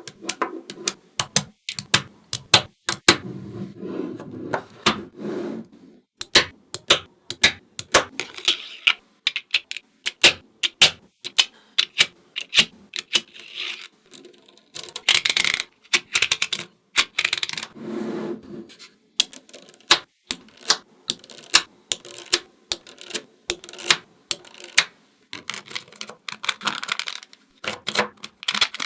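Small neodymium magnetic balls snapping together and clicking against each other in quick irregular clicks, with short stretches of rattling as the balls are rolled and pushed into place.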